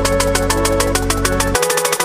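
Background electronic music with a fast, steady drum beat; the bass drops out about one and a half seconds in.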